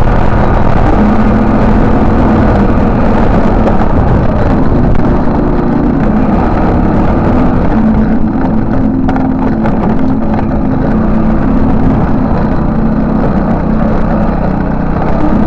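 X-PRO Fiji 200cc scooter engine running steadily as the bike rides along a dirt path, a constant low drone over loud riding noise.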